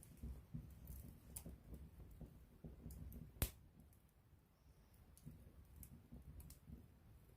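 Campfire wood crackling with scattered small pops and one sharp, louder pop about three and a half seconds in, over a faint low rumble of the burning fire.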